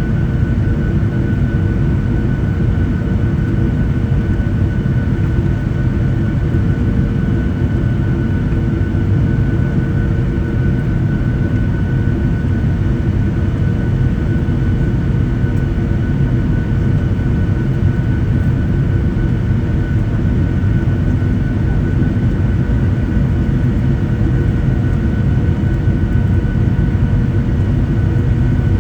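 Cabin noise of a Boeing 737-800 on final approach: its CFM56-7B jet engines and the airflow make a steady deep rumble with a faint, even whine.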